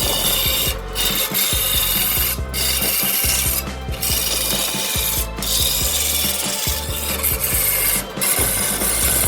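A turning tool cutting into wood spinning on a lathe: a loud, continuous scraping and rasping that stops for a brief moment every second or two as the tool comes off the wood.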